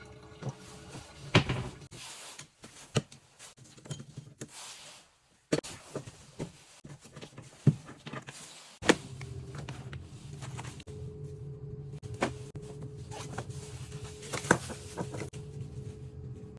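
Scattered sharp clicks and knocks, about half a dozen louder ones, over a faint steady hum that drops out for a few seconds in the middle.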